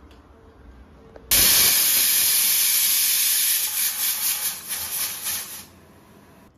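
Stovetop aluminium pressure cooker whistling: the weight lifts and steam hisses out loudly, starting suddenly about a second in. The hiss holds steady for about two seconds, then sputters and pulses before dying away near the end. It is the whistle that marks the cooker at full pressure, counted off to time the dal's cooking.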